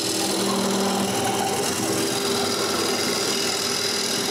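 Wood lathe running while a turning tool cuts a spinning cherry blank to shape: a steady cutting hiss over the lathe's steady hum.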